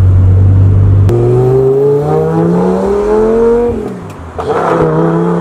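Lamborghini Gallardo V10 heard from inside the cabin under hard acceleration. A deep steady drone gives way about a second in to an engine note rising steadily in pitch for nearly three seconds. It dips briefly at a gear change about four seconds in, then pulls again at a lower pitch.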